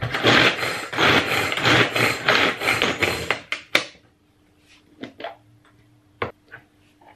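Manual pull-cord food chopper worked in quick repeated pulls, its spinning blades rattling as they mince ginger, garlic and scallion in the plastic bowl, for about three and a half seconds. Then a couple of sharp clicks and a few light knocks as the lid is taken off.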